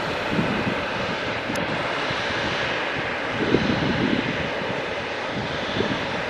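Boeing 777-300ER's GE90 turbofan engines running steadily as the airliner rolls along the runway, with a few irregular low thumps in the background.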